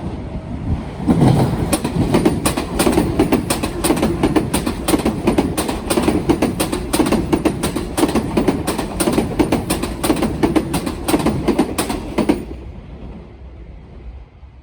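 Electric train passing over the rail joints of a turnout, its wheels clattering across the joints in a long, rapid run of loud clacks over a steady rumble. The clacking stops abruptly near the end and the rumble fades.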